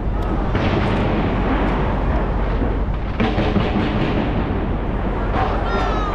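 Skyscraper fireworks display going off in a continuous barrage: dense booming and crackling bursts. A short, high falling whistle comes near the end.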